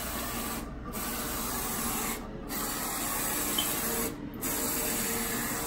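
Roland FJ-50 wide-format eco-solvent inkjet printer printing: the print head carriage sweeps across the media with a steady mechanical hiss. The hiss breaks off briefly about every two seconds, three times in all, as the carriage turns at the end of each pass.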